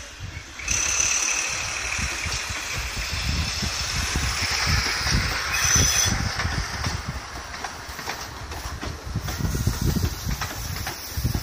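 An HST diesel train pulling away past close by: the power car's engine is running under power with a high whine that starts about a second in and fades after about six seconds, then the Mk3 coaches roll past with the low rumble and thumping of their wheels over the rail joints.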